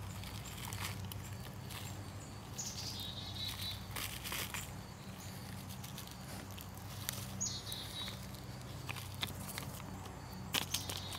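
Clear plastic packet crinkling and rustling as chocolate crumb topping is shaken out onto cheesecake in a metal mess tray, with sharper crinkles near the end as the packet is handled. A bird chirps twice in the background over a steady low hum.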